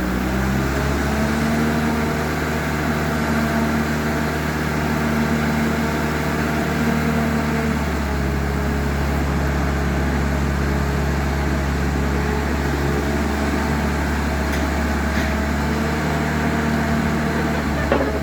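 An engine running steadily, its hum stepping slightly in pitch a few times, with a brief knock at the very end.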